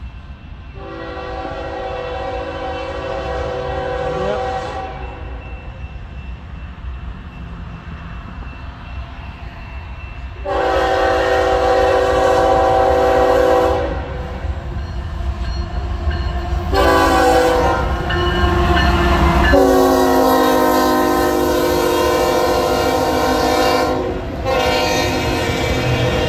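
A CSX diesel freight locomotive's multi-note air horn blows five long blasts of about three to four seconds each, the later ones almost running together. Under the horn, the low rumble of the locomotives and the rolling of coal hopper cars on the rails grow louder as the train draws near and passes.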